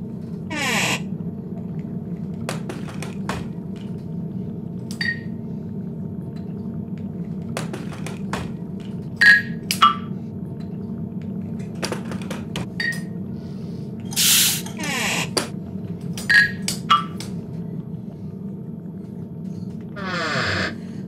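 Props handled on a wooden workbench: sharp clicks and clinks of glass and wood, some with a brief ringing tone, and a few short rattling pours of seeds into glass tubes, over a steady low hum.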